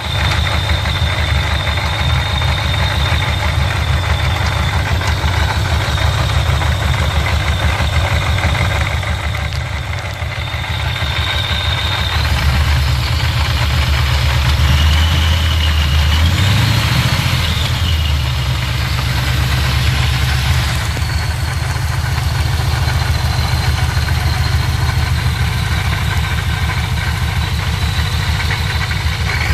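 2003 Ford Lightning's supercharged 5.4-litre V8 running, with a thin, steady high-pitched whine over the engine note. About halfway through the whine dips lower, then rises with the engine. It is the noise the supercharger has made since its rotors were swapped and its case bearings replaced.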